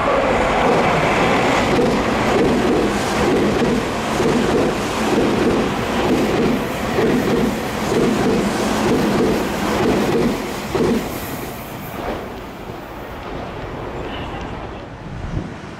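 Tokyu Den-en-toshi Line train passing through a station at speed without stopping: a loud rush of the cars with a rhythmic clatter of wheels over the rail joints. The sound dies away after about eleven seconds.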